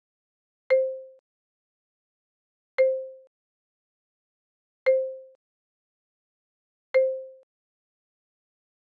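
A small, soft pop sound effect, a short low tone that dies away quickly, repeated four times about two seconds apart, each marking a switch to the next dots flashcard.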